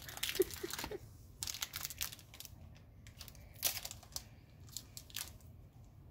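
Foil wrapper of a Magic: The Gathering booster pack crinkling in several short bursts as fingers pick and pull at it, trying to tear it open.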